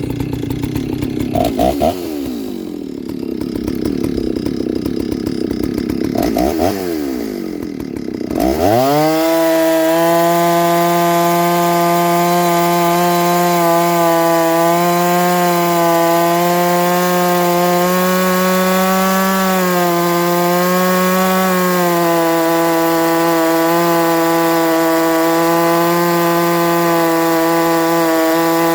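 Solo 670 two-stroke chainsaw with a 42-inch bar cutting hard, dry hardwood. For the first several seconds it runs at lower, wavering revs with a couple of rises and falls. About eight seconds in it revs up sharply and holds a steady high pitch through the cut, sagging a little around twenty seconds in.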